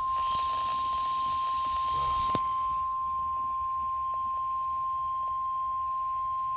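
NOAA Weather Radio 1050 Hz warning alarm tone: one steady, unbroken single pitch over light radio hiss, with one sharp click about two seconds in. This tone is the alert that a warning message follows, here a river flood warning.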